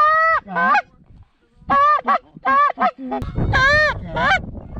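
Canada goose honks, loud and close: long honks each followed by a short clipped note, with a quicker run of short honks in the middle. A low rushing noise runs underneath from about three seconds in.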